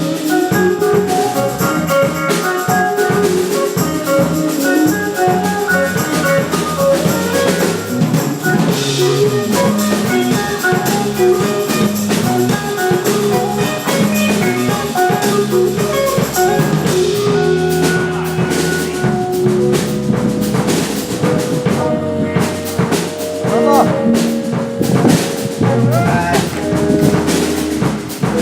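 A live rock band playing an instrumental passage, with drum kit, guitar and bass.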